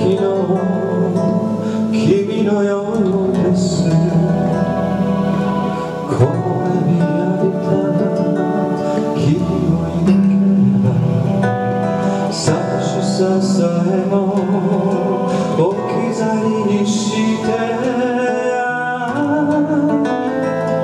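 Bossa nova played live by a guitar duo: a nylon-string classical guitar and an electric guitar, plucked chords and melody running on without a break.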